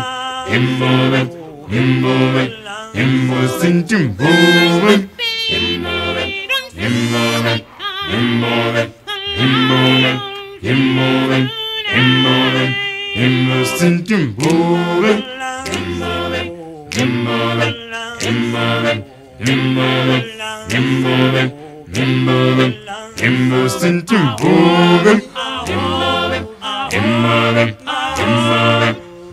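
Background music: a cappella choral singing in harmony, with a low vocal part repeating a short rhythmic figure about once a second.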